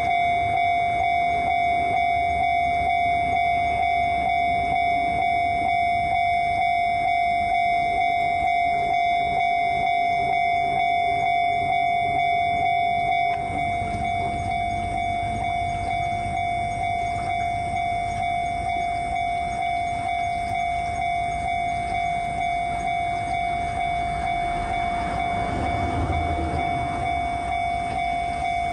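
Japanese railway level-crossing alarm bell ringing steadily in a regular repeating pulse. A passing train's rumble rises beneath it near the end.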